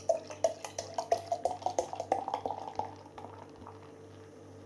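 Stout glugging out of a glass bottle into a glass: a rapid run of gurgling glugs that thins out about three seconds in.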